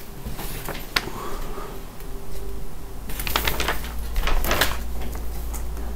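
Rustling and crinkling of a large hand-drawn paper map being handled and moved about, with a sharp click about a second in and a denser flurry of rustles near the middle.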